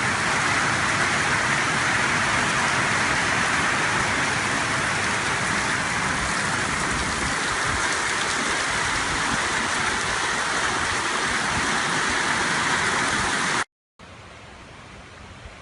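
Steady, loud rushing water noise, with no pitch or rhythm. About thirteen and a half seconds in it cuts off abruptly and gives way to a much quieter hiss.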